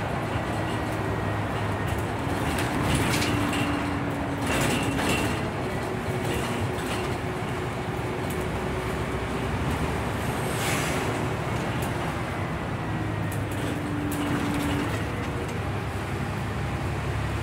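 Scania N94UB single-deck bus running along a street, heard from inside the passenger cabin: a steady engine and road drone with a hum that comes and goes, and a few knocks and rattles of the body, the loudest about five seconds in and about eleven seconds in.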